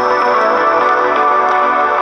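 Guitar-led music played from a phone through a homemade transistor amplifier and a woofer, steady and thin on deep bass.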